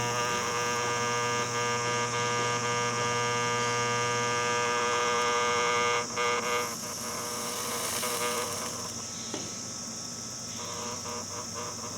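Transformer-type soldering gun buzzing steadily with a mains hum while switched on; about six seconds in the buzz drops away to a quieter, rougher hum.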